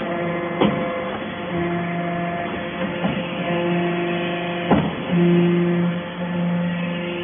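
Background instrumental music, likely guitar: held notes that change every second or so, with a few sharp plucks or strums, one about half a second in and one near the five-second mark.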